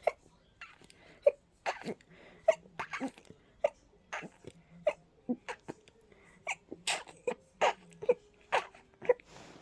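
A person's rapid fit of short, sharp sneezes, about two a second, from a cold-stuffed, sensitive nose.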